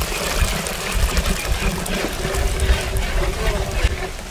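Stock from boiled goat legs poured in a thick stream from a large pot into a steel pot below, a steady splashing pour with a low rumble.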